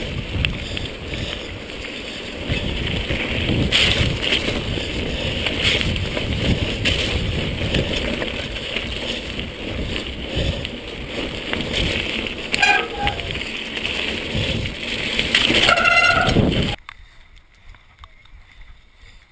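Mountain bike riding fast down a gravel forest trail: tyre roar on the gravel with the bike rattling, plus a couple of sharp clacks. It cuts off suddenly near the end to a much quieter, low background.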